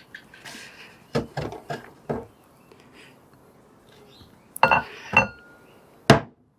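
Metal parts and tools clinking and knocking during a motorcycle front fork reassembly: a few knocks, then a cluster of sharp clinks with a brief metallic ring, and one hard knock near the end.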